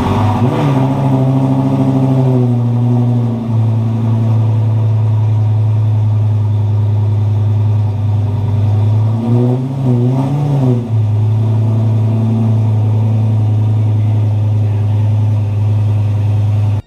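Lamborghini Gallardo V10 running through a newly fitted aftermarket 2.75-inch X-pipe exhaust. It catches right at the start and runs a fast idle that drops to a steady lower idle after about three seconds. Around ten seconds in there are two quick throttle blips.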